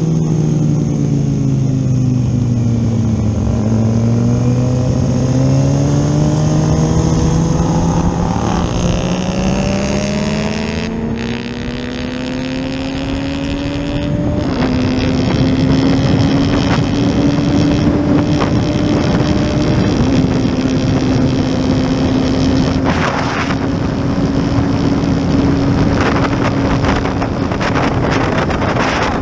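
Kawasaki Ninja ZX-6R's inline-four engine heard from the bike, with wind noise on the microphone. The engine note falls over the first few seconds, rises steadily under acceleration until about halfway through, then holds a fairly steady pitch at speed.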